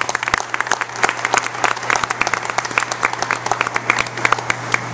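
Audience applauding, a dense patter of hand claps that stops just before the end, over a steady low hum.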